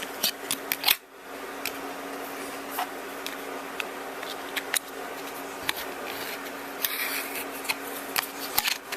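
Small plastic clicks and scrapes of a Samsung Alias 2 flip phone's battery cover being popped off and its battery fitted, with a short rubbing scrape about seven seconds in, over a steady hum.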